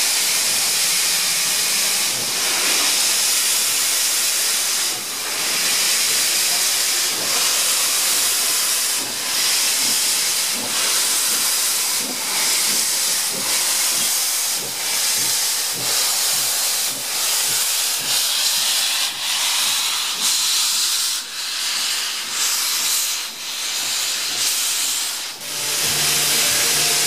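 NSW C36 class steam locomotive 3642 venting steam through its open cylinder drain cocks as it moves off slowly, a loud, steady hiss. About a second before the end, music takes over.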